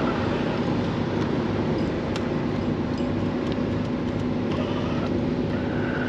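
Steady mechanical hum with a constant low drone, like an engine or machinery running.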